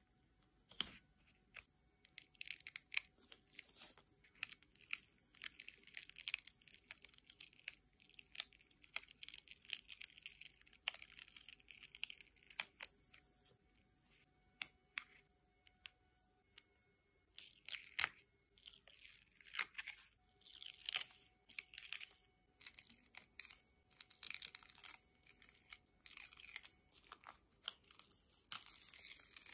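Self-adhesive vinyl sheet being picked at with a weeding tool and peeled and pressed down by gloved hands: quiet, irregular crackling, scratching and peeling, with small clicks. It gets busier near the end.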